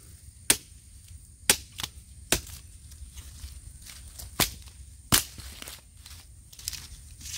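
Sharp, irregular snaps and cracks, about seven of them, unevenly spaced, the loudest a little over a second and five seconds in.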